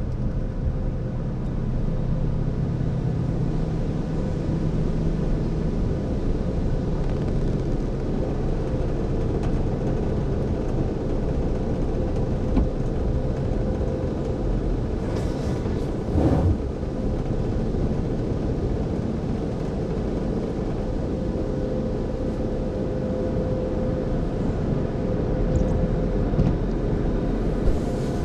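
Steady hum and rumble of tunnel car wash machinery running, heard from inside a car's cabin, with a constant mid-pitched hum throughout and one brief louder burst of noise about sixteen seconds in.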